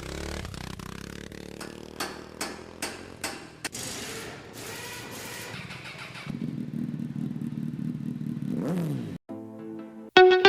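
A motorcycle-type engine running, with metallic clatter and a quick run of sharp knocks, a louder rough stretch, then a falling pitch glide; distorted electric-guitar music comes in near the end.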